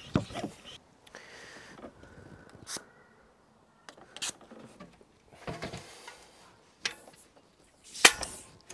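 A Topeak Joe Blow Booster track pump gives a last pump stroke or two, inflating a tubeless tyre to 50 PSI. Then come scattered clicks and knocks as the pump head is worked off the valve and the wheel is handled, the loudest knock near the end.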